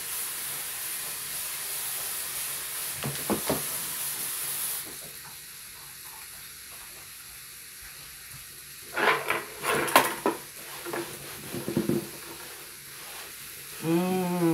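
Bacon-wrapped chicken sizzling in a flip waffle maker, a steady hiss of frying fat that drops noticeably about five seconds in. Around two-thirds of the way through come several knocks and clatter as a pan is handled.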